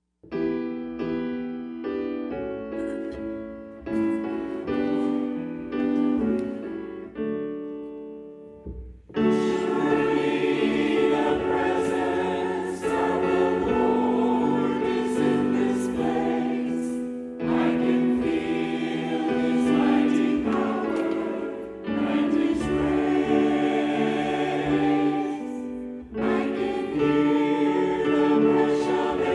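A church choir singing an anthem with instrumental accompaniment, entering about nine seconds in after a short instrumental introduction of held chords.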